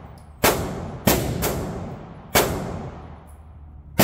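Five gunshots at uneven spacing, the second and third close together, each followed by a ringing echo that dies away.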